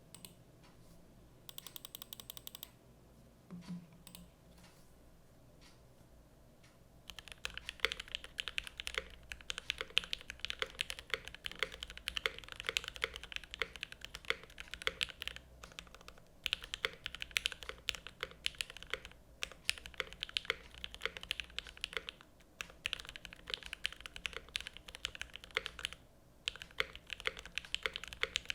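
Typing on a Velvet Pro 60% mechanical keyboard with a stainless steel bottom case, lubed Gateron X linear switches on an aluminium plate in a double O-ring mount, and GMK keycaps: steady fast keystrokes starting about seven seconds in, with a few short pauses. Before the typing there is only a short rattle and a single soft thump.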